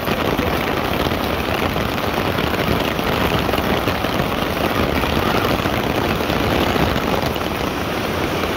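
Heavy rain falling on wet pavement and on a clear plastic umbrella: a steady, dense hiss with fine patter throughout.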